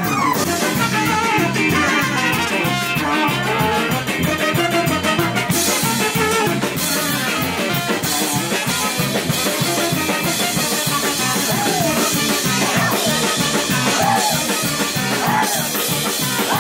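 A live jazz big band plays: a drum kit keeps a steady beat under brass, saxophone and guitar.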